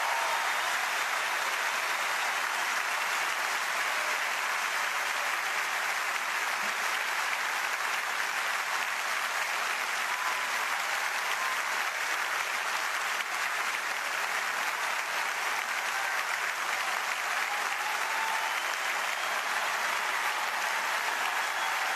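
Large arena crowd applauding steadily without a break, with a few faint whistles through it.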